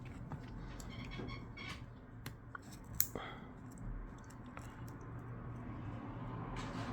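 Faint scattered clicks and scrapes of a thin metal pry tool working between an iPhone 12's screen and its metal frame, with one sharper click about three seconds in.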